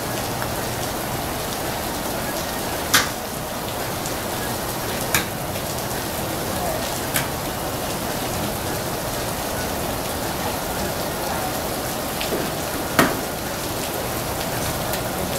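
Steady hiss of rain falling on an open golf driving range, with four sharp clicks of golf balls being struck by clubs, the loudest about three seconds in and near the end.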